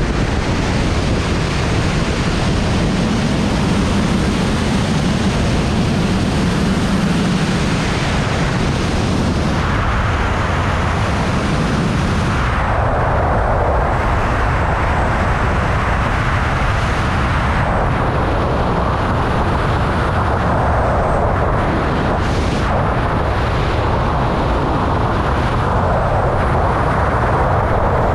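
Wind rushing over a GoPro microphone during wingsuit flight: a loud, steady roar of airflow. A little before the middle the high hiss drops away and a lower, fuller rush takes over.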